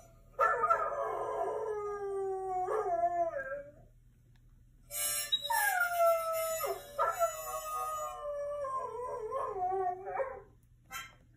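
Dog howls played through a laptop's speakers: one long howl lasting about three seconds, then after a short pause a second, longer howl starting about five seconds in, each sliding down in pitch.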